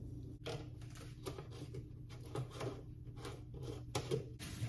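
Light clicks and rustles of a plastic gallon milk jug being handled and its red cap twisted back on, after milk has been poured into a saucepan. A steady low hum runs underneath.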